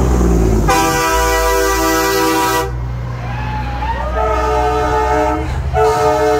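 Semi-truck air horns blowing three long chords, the first about a second in, the second around four seconds in, and the third near the end, over the low rumble of passing diesel trucks.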